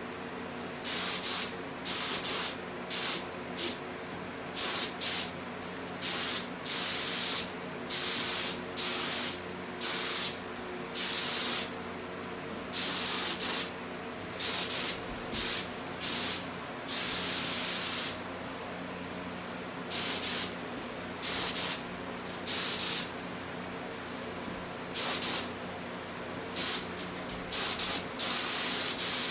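Gravity-feed air spray gun spraying paint in quick trigger pulls: a loud hiss that switches on and off sharply about thirty times, most bursts under a second, the longest about a second, with pauses of a couple of seconds now and then. A steady low hum sits underneath between bursts.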